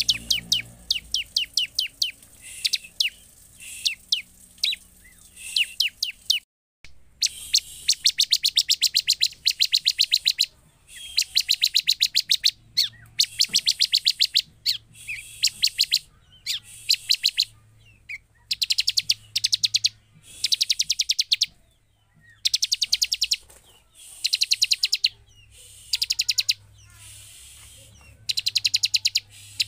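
Bar-winged prinia (ciblek) singing: rapid, high trills of many quick notes in bursts of about a second, repeated with short pauses. Scattered single chirps fill the first few seconds, with a short silent gap about six seconds in.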